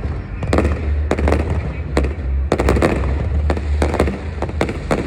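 Fireworks display: a rapid, irregular string of sharp bangs and crackles from bursting shells, over a continuous deep rumble.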